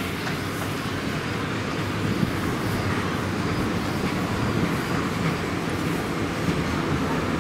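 Electric trams running on street track, a steady rumble of wheels and motors mixed with road traffic, growing a little louder about two seconds in.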